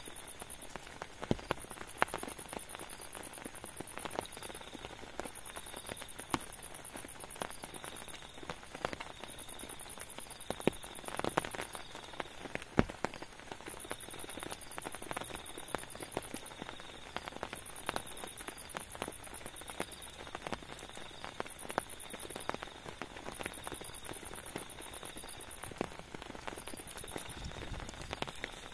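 Raindrops tapping irregularly on a tent, with insects trilling in repeated bursts of a second or two in the background.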